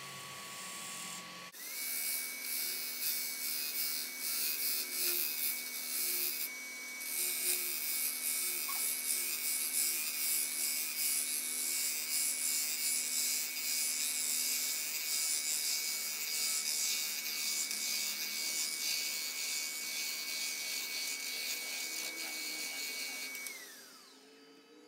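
Wood lathe running with a steady high motor whine while a turning tool cuts into the spinning wet cypress near the chuck, making a loud hissing of shavings. The cutting starts abruptly and lets up briefly about six seconds in. Near the end the cutting stops and the whine falls in pitch as the lathe winds down.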